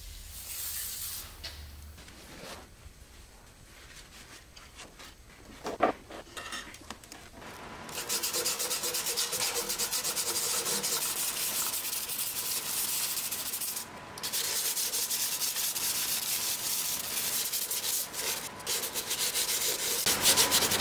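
Hand-sanding painted sheet steel on a car's frame rail with 220-grit sandpaper, in rapid back-and-forth strokes that start about eight seconds in and pause briefly near fourteen seconds. The edges of the paint are being feathered down to bare metal. A short spray-can hiss comes at the very start.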